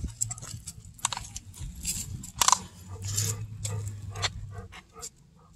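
Jingling and clicking of dog collar tags and leash clips with rustling as leashed golden retrievers move about, a sharp clink about two and a half seconds in, and a low steady hum in the middle that fades out near the end.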